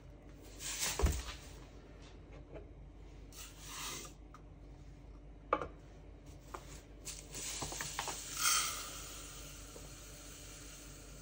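Granulated sugar poured from a paper bag into a plastic container on a kitchen scale, a short hiss, with a few knocks and clicks as the container is handled and set down. The loudest knock comes about a second in; the longest pouring hiss comes near the end.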